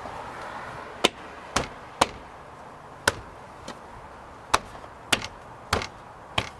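Plastic retaining clips of a 2003 Toyota Sequoia's interior door panel snapping into the door as the panel is pressed and knocked into place: a string of about nine sharp knocks and snaps, irregularly spaced.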